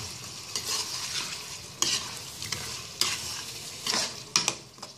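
A spoon stirring and scraping through a creamy beef karahi simmering in a non-stick frying pan, over a steady sizzle. Several sharp knocks of the spoon against the pan, about a second apart.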